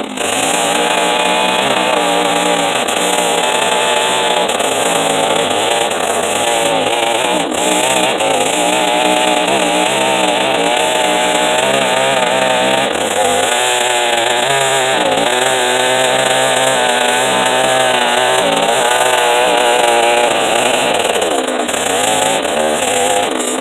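Chainsaw with a small-cutter chain ripping red oak lengthwise, the engine running steadily under load with its pitch wavering up and down as the cut goes.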